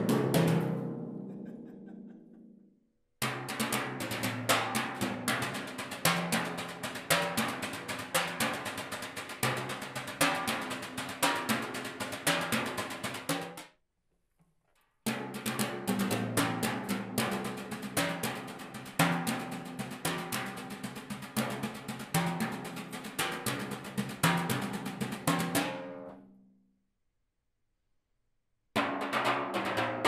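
Timpani played with brushes: rapid, dense brush strokes on the heads over the drums' low pitched tones. The playing comes in several short passages broken by abrupt silences about 3, 14 and 27 seconds in; near the start the drums ring on and fade away.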